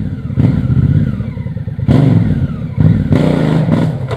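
Off-road motorcycle engine revving in repeated swells as it climbs over rough trail, with a few sharp knocks and clatter from the bike.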